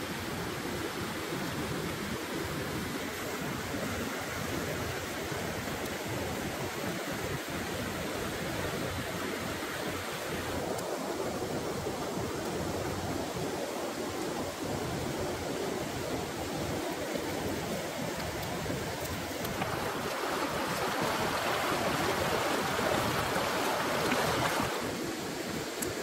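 Octopus skewers grilling over charcoal embers, hissing steadily, with the hiss louder for a few seconds near the end.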